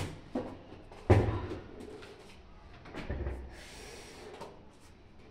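Household items being handled and put away. There is a sharp knock with a low thud about a second in, a duller thud around three seconds, and a few lighter knocks and soft rustling in between.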